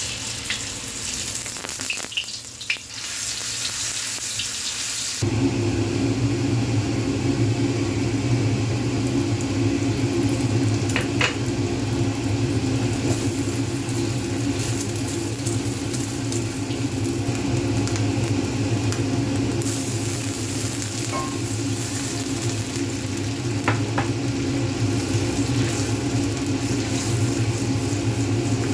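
Food sizzling as it fries in oil in a pan, a steady crackling hiss. About five seconds in, a steady low hum joins it, with a few light ticks later on.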